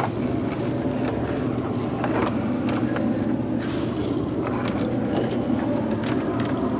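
Small boat's engine running steadily at a low drone, with scattered light knocks and clicks over it.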